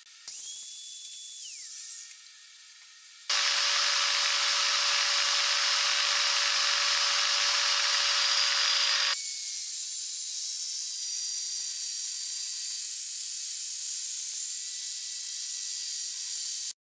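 Electric angle grinder with a sanding disc grinding the edge of a small metal plate held in a vise. It spins up briefly and winds down, then runs steadily against the metal. The sound changes about nine seconds in, and it cuts off abruptly near the end.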